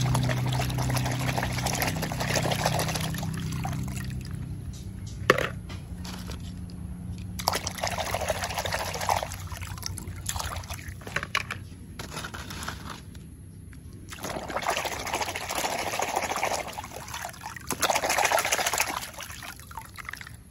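Hand sloshing and swishing toy cars through a basin of soapy water, in several bouts of splashing with quieter dripping between, and one sharp knock about five seconds in.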